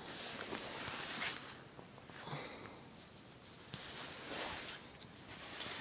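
Faint, irregular rustling and shuffling of someone moving about while handling the recording phone, with a small click about four seconds in.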